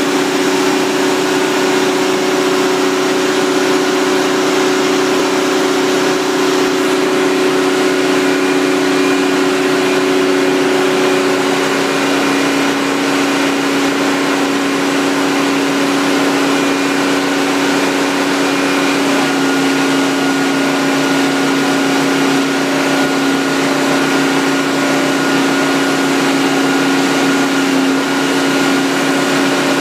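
Water-well drilling rig running steadily under load, a loud engine hum over the rushing of frothy water and foam gushing out of the borehole. The engine's pitch settles a little lower about halfway through.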